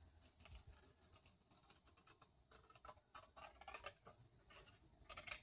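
Ordinary scissors cutting through a thin sheet of mica, a faint run of quick, crisp snips and crackles.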